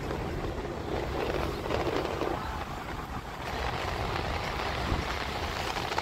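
Steady low rumble and wind rush of a vehicle moving along a road, heard from on board.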